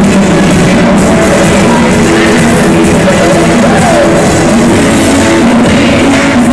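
Loud music playing continuously, a full, dense mix with no break.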